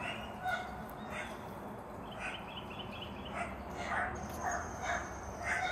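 Distant animal calls repeating about once a second, with birdsong around them: a quick trill about two seconds in, and a high steady tone joining about four seconds in.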